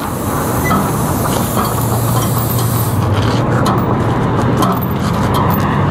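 Plasma cutter cutting through steel rake tines: a steady hiss of the arc and air with a low hum under it. About three seconds in the cut ends and the high part of the hiss drops away, while the torch's air keeps hissing, with a few light clicks.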